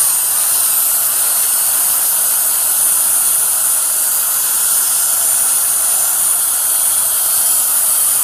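Right-angle air die grinder running steadily with a Scotch-Brite disc, scouring pumpage buildup out of a centrifugal pump's mechanical-seal bore: a loud, even hiss.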